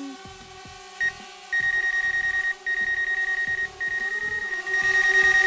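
DJI Spark mini quadcopter hovering with a steady propeller hum that wavers in pitch about four seconds in, while a rapid high-pitched beeping runs over it from about a second and a half in.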